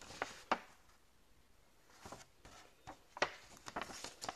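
Paper sheets of an invoice and envelope being handled and leafed through: several short, sharp rustles and flaps, with a cluster of them near the end.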